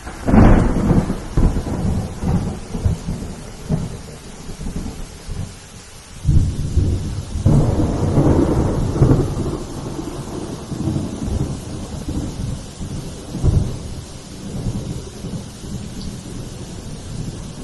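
Steady rain with rolling thunder: a loud rumble breaks in just after the start, another builds from about six seconds in, and a shorter one comes near the end.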